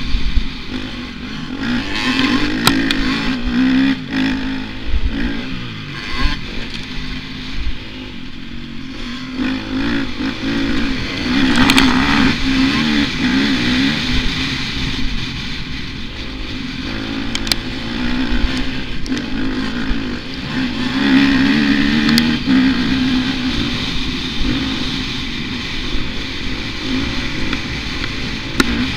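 Dirt bike engine revving up and falling back again and again as it is ridden hard over a motocross track, heard close from the rider's helmet, with a few sharp knocks along the way.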